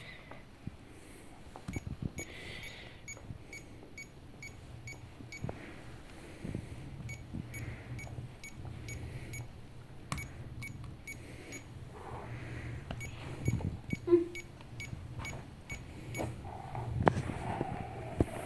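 Two runs of short, high electronic beeps, about three a second, over a steady low hum, with a few sharp knocks from handling.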